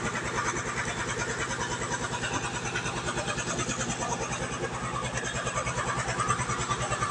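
A small engine running steadily, with a fast, even chugging of about ten beats a second.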